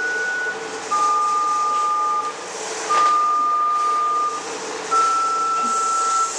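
Mobile phone keypad tones as a number is dialled: a series of long two-note beeps, each held about a second and a half with short gaps between them, at a different pitch from one to the next.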